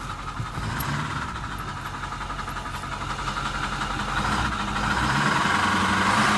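2008 Ford F-250's 6.4 L Power Stroke V8 turbo-diesel running and being revved, getting louder from about four seconds in, with a knock that the owner suspects comes from a rocker arm or something else in the top end.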